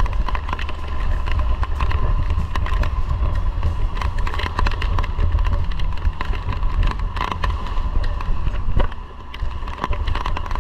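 Outboard motor running at speed on a small boat pounding through rough sea, with heavy wind buffeting the microphone and spray and waves splashing against the hull. A steady whine sits over the rumble of the wind.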